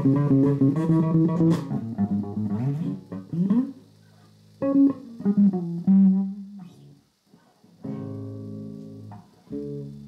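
Electric bass guitar being plucked and tuned: single notes and pairs of notes ring out and die away, with pitch sliding upward a few times about three seconds in as a string is brought toward pitch. The strings are still slightly out of tune with each other.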